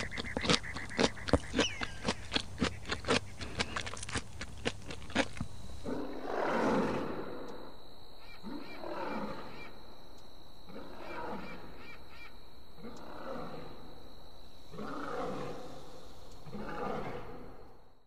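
A needletail swift's rapid, sharp clicking calls. About five seconds in they give way to a clouded leopard's rough growling calls, six of them about two seconds apart.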